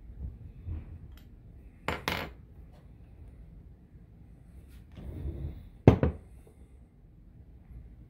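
Small metal lock-cylinder parts, a steel housing and brass pieces, clinking and clicking against each other and the desk as they are handled. There are two sharp clicks about two seconds in and a louder single click about six seconds in.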